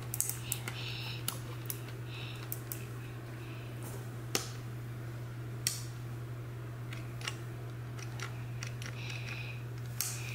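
Irregular small clicks of toggle switches and push buttons being pressed on a wooden toy busy board, a few louder snaps among them, over a steady low hum.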